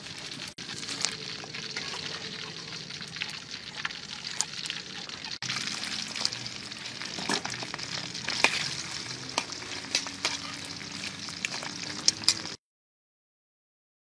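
Chicken feet deep-frying in hot oil: a steady sizzle with frequent sharp pops and crackles. The sound cuts off abruptly to silence near the end.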